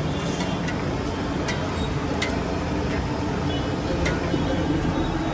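Bhature deep-frying in a large kadai of hot oil: steady sizzling, with a few light clicks of a metal slotted spoon against the pan.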